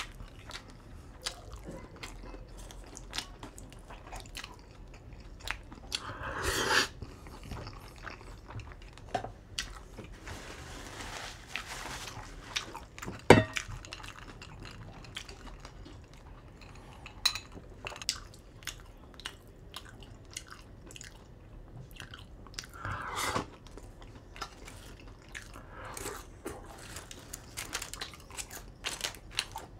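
Close-miked eating of ramen noodles: steady chewing and mouth sounds with many small clicks, and two longer slurps about six seconds in and again about twenty-three seconds in. A single sharp knock about thirteen seconds in.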